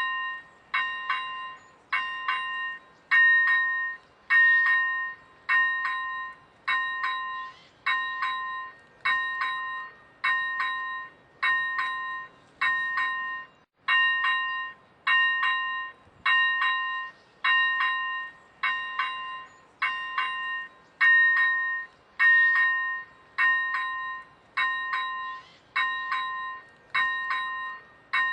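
Czech railway level-crossing warning bell ringing steadily, about one stroke a second, each stroke a bright ring that dies away before the next.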